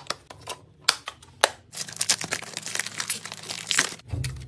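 Gift packaging being unwrapped by hand: a few sharp crackles, then about two seconds of continuous crinkling and tearing.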